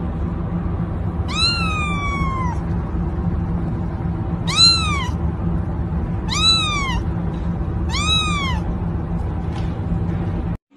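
A kitten meowing four times. The first meow is longer and falls in pitch; the three that follow are shorter, each rising then falling, about a second and a half apart. A steady low hum of background noise runs underneath.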